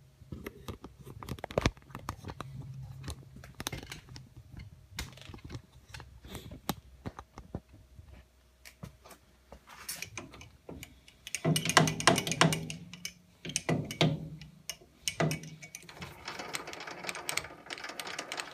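Scattered metal clicks, taps and knocks of a workpiece being remounted and clamped in a lathe chuck, with a low hum that comes and goes and a busier, louder stretch of knocks about twelve seconds in.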